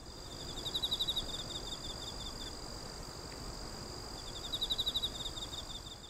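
Crickets chirping: two runs of rapid pulsed chirps, about a second in and again near the end, over a steady high-pitched insect trill and a low background hiss.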